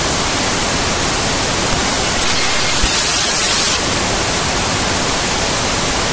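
Loud, steady television static: the hiss of an untuned TV screen's 'snow', harsher and brighter for a second or so midway, then cut off abruptly.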